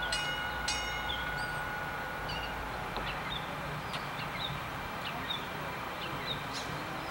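Maryland MTA light rail train rolling slowly toward and past the listener with a low rumble. A bell dings about twice a second and stops about a second in, and a steady high whine fades out about three seconds in.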